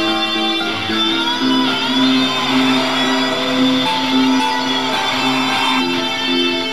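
Guitar solo played over a GarageBand backing track: held lead notes that bend and waver above a low, repeating riff.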